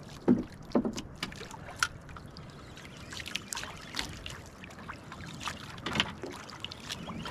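Sea water sloshing and lapping against the hull of a small outrigger boat, with steady wind noise and scattered short clicks and knocks.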